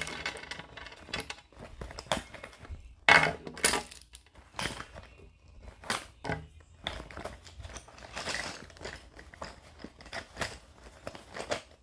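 Pencils and other pencil-case contents being handled on a table: irregular clicks, light clattering and rustling, with a sharper knock about three seconds in.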